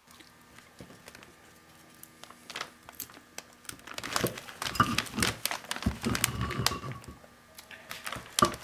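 Plastic bench sheeting crinkling and metal clicking and knocking as a cast-iron differential housing is handled and split apart. The handling gets busier about halfway through, with one sharp knock near the end.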